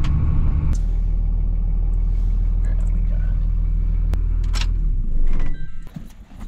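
Pickup truck engine and road rumble heard from inside the cab while driving, a steady low drone that drops away about five and a half seconds in, leaving a few light clicks.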